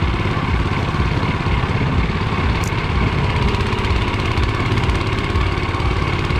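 Motor Sich walk-behind tractor's small air-cooled single-cylinder petrol engine running steadily under load as the machine drives forward.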